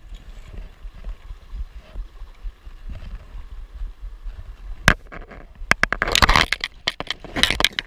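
Sharp irregular clicks of metal fishing forceps (pincers) bouncing against the GoPro's plastic case, mixed with crunching footsteps on a gravel creek bank, over a low rumble. The clicks and crunches start about five seconds in, in two loud bunches near six and seven and a half seconds.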